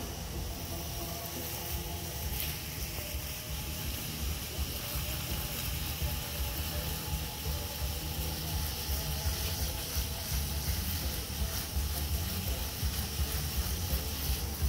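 Garden hose spray nozzle hissing steadily as its jet of water sprays onto grass and asphalt, with a low rumble underneath.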